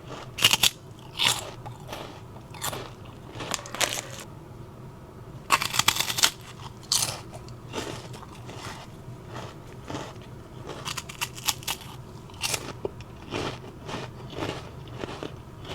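Cookies being bitten and chewed: irregular crunches with chewing between them, and a quick flurry of loud crunches around six seconds in.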